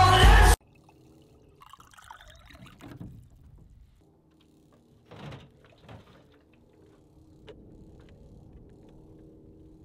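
Music cuts off sharply about half a second in. Then water runs faintly from the spigot of a plastic water jug into a bottle, with a few small plastic knocks and clicks.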